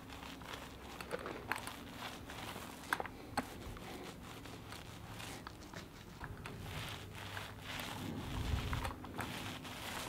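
Paint roller rolling water-based varnish over a gritty, freshly sanded floor of wood rounds set in concrete: a soft, uneven crackling, with a few low thuds about eight seconds in.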